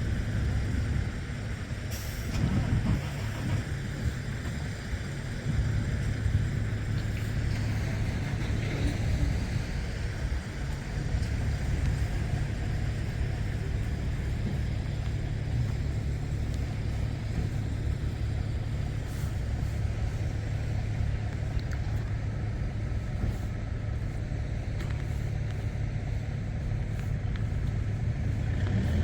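Rice combine harvester's engine running steadily, a constant low drone.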